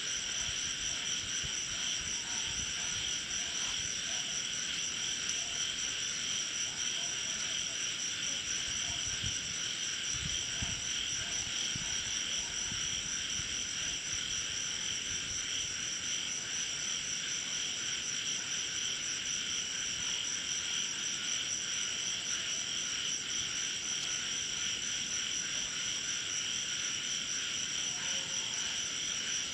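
A continuous chorus of crickets and other night insects, an unbroken shrill trilling that holds steady throughout. A few faint low thumps come about ten seconds in.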